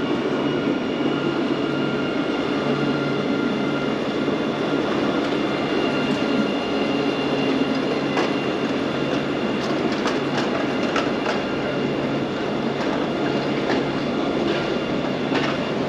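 A city tram running past close by: a loud, steady hum with a few light clicks in the second half.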